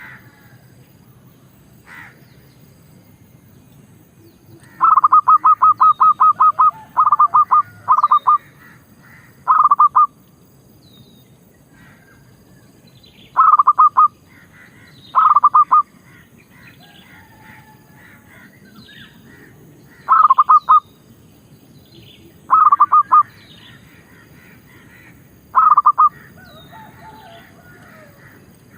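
Zebra dove (merbok) cooing in bursts of fast staccato notes. The first, longest run comes about five seconds in, followed by shorter phrases every few seconds. Faint chirps of other small birds sound in between.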